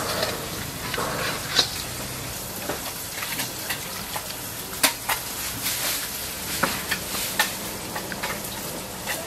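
A large pot of water boiling steadily, with the sharp clinks of a wire mesh strainer knocking against the metal pot and a stainless steel bowl as cooked seonji (ox-blood curd) is scooped out and tipped in, several times over.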